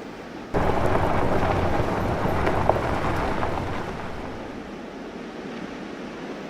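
Road vehicle noise: a rush of car and road sound that cuts in suddenly about half a second in and fades away over the next few seconds.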